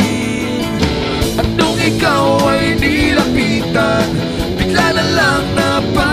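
A rock song playing: a singing voice over guitars with a steady beat.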